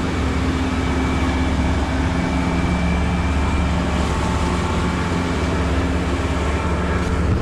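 200 hp outboard motor running steadily while trolling, a low even hum under the constant rush of churning wake water.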